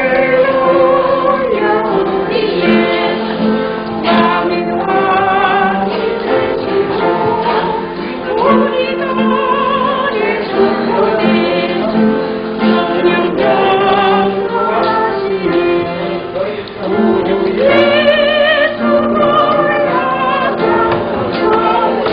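Voices singing a church hymn of praise, held notes wavering with vibrato.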